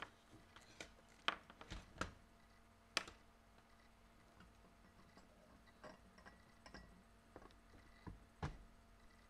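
Scattered light clicks and knocks of small objects being handled, about a dozen at irregular intervals, over a faint steady hum.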